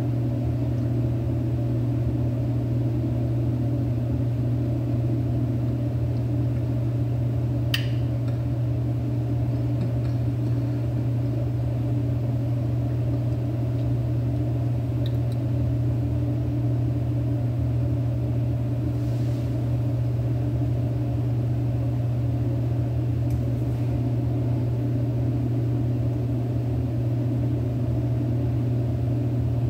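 A steady, loud, low mechanical hum, with a single faint click about eight seconds in.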